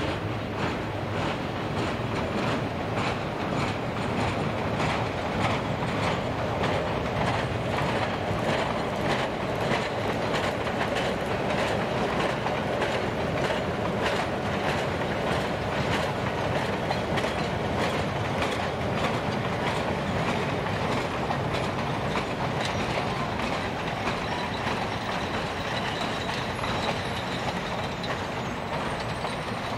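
Passenger coaches of a train rolling across a steel truss bridge: a steady rumble of wheels on rail, with a regular clickety-clack as the wheels pass over rail joints.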